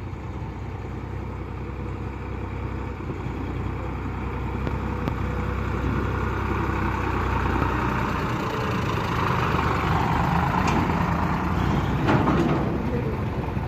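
Sonalika two-wheel-drive tractor's diesel engine running, getting louder over the first ten seconds or so, with a few knocks near the end.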